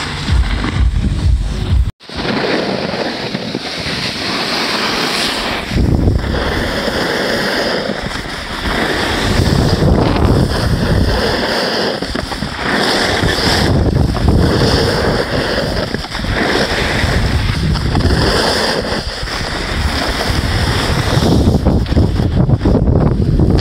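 Wind buffeting an action camera's microphone, mixed with the hiss and scrape of a ride over packed snow as the wearer slides downhill. The sound cuts out for an instant about two seconds in.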